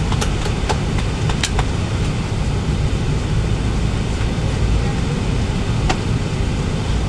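Steady low rumble of cabin noise inside an Airbus A380 taxiing after landing, with a few light clicks in the first second and a half and another about six seconds in.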